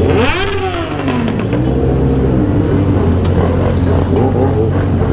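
Many motorcycle engines idling together in a packed street. One is revved sharply at the start, its pitch rising and then falling within about a second, and smaller revs follow later.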